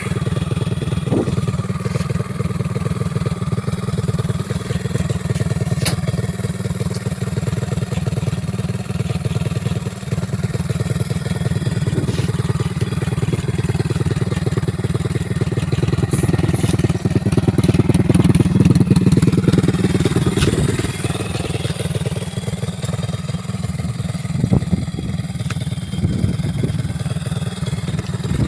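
Motorcycle engine running steadily while riding, rising in level for a few seconds a little past the middle and then easing off, with a few sharp knocks.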